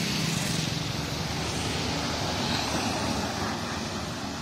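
Highway traffic passing close by: motorcycle engines and a loaded truck going by, with tyre noise over a low engine hum. The sound slowly dies down near the end.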